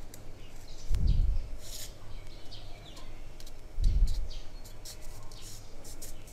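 Stiff paper crinkling and rustling as a folded paper piece is handled and its creases are pressed down with small scissors: many short crisp scrapes and ticks, with two dull handling bumps, about a second in and about four seconds in.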